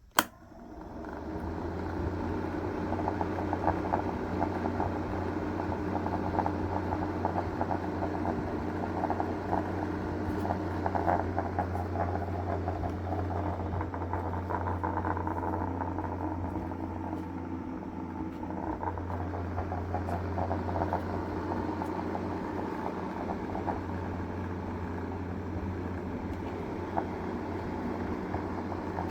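A sharp click, then a small electric motor in a homemade model air conditioner spins up within about a second and runs steadily, with a low hum and a light rattle.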